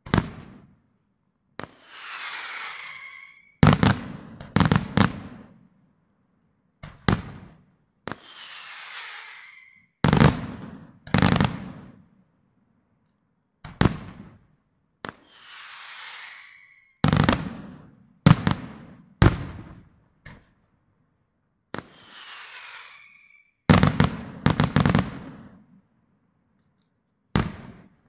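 Aerial firework shells bursting in a display: a series of sharp, loud bangs, often two or three in quick succession. About four times, a hiss lasting roughly a second comes between the bangs.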